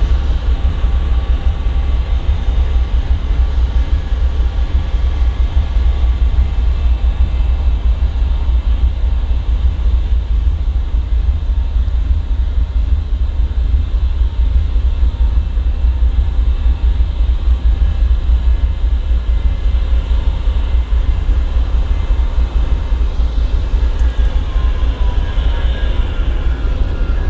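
GE ES40DC diesel-electric locomotive idling, its V12 GEVO diesel engine running with a steady, deep low rumble.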